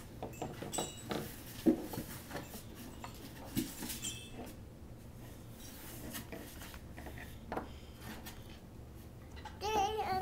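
Small plastic toy nativity figures clicking and knocking against each other and the wooden table as a child handles them, with one sharper knock about two seconds in. A child starts singing near the end.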